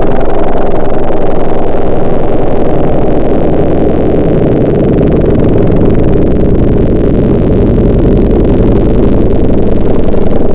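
Engine running steadily and loudly, a dull sound with most of its energy low and little treble, from the tree-cutting work outside.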